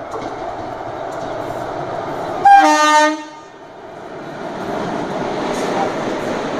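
Indian Railways WAP-4 electric locomotive sounding one loud horn blast, under a second long, about two and a half seconds in, as it approaches. The train's rolling noise grows louder through the rest as the locomotives and coaches draw level.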